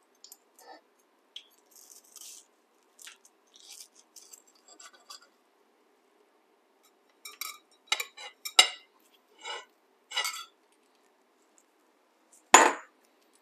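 Kitchen knife cutting through a fried, batter-crusted stuffed potato on a ceramic plate: crunches of the crust and clinks of the blade against the plate, sparse at first and louder about halfway through. One sharp clack near the end.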